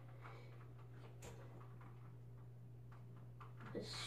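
Near silence: a steady low hum with a few faint clicks, and a faint stirring of sound near the end.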